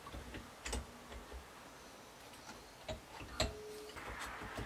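Faint, scattered metal clicks and taps as the aluminium cylinder barrels of a Honda 400/4 engine are worked down over the studs and pistons onto the crankcase, with a few sharp ticks about a second in and again around three seconds in.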